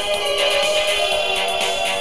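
Instrumental backing music of a pop song playing in a gap between sung lines, with no voice.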